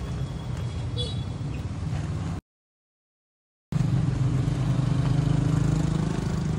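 Road traffic: motor-vehicle engines running close by, a steady low hum. The sound cuts to dead silence for about a second midway. After the gap an engine is louder, its pitch creeping up slightly.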